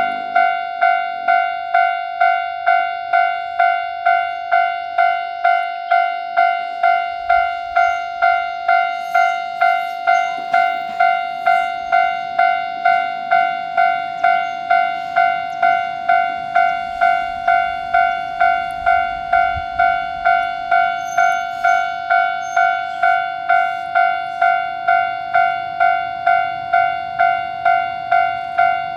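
Japanese level-crossing electronic warning bell ringing steadily, a clear ding about three times every two seconds, the sign that the gates are down for a train. A faint low rumble from a passing diesel railcar comes up in the middle.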